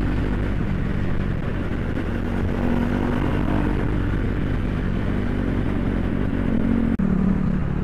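KTM RC 390's single-cylinder engine running steadily while cruising, with wind and road noise. The sound cuts out for an instant about seven seconds in, and the engine note changes after it.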